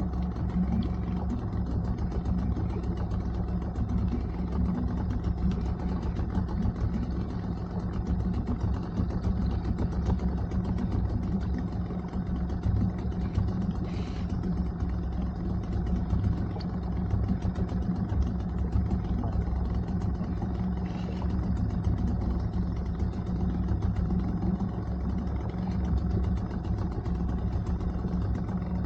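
Small boat engine running steadily at one constant speed, a low even drone that does not change.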